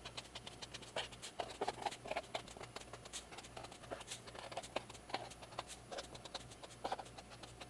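Faint, irregular light clicks and taps of small tools and a cardboard box being handled and set down, over a faint low hum.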